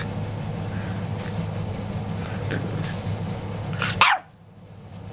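French bulldog puppy grumbling in a low, steady growl, then giving one sharp bark that falls in pitch about four seconds in, after which the growl stops.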